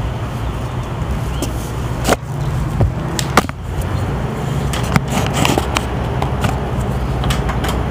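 A steady low mechanical hum, with four sharp clicks or knocks between about two and five seconds in.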